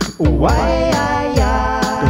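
Live electronic music: a looped drum beat with steady low kicks and clicky hits, under a pitched, effects-processed voice or synth line that swoops down and back up about a quarter second in. A steady high-pitched squeal runs underneath, which the uploader puts down to a guitar-pedal battery.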